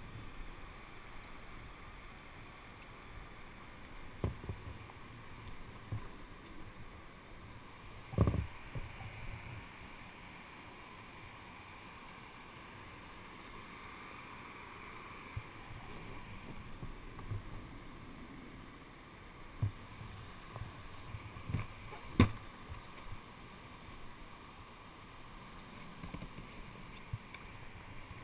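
Footsteps and scattered knocks as a plastic whitewater kayak and its paddle are carried over rock, over a steady hiss. The two sharpest knocks come about eight seconds in and about three quarters of the way through.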